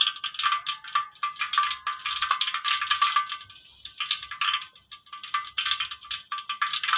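Background music: a bright, busy instrumental track with fast rattling percussion over a held high tone.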